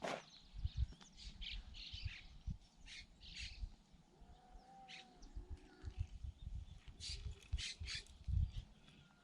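Birds chirping outdoors, short high calls scattered irregularly, over low rumbling and knocking.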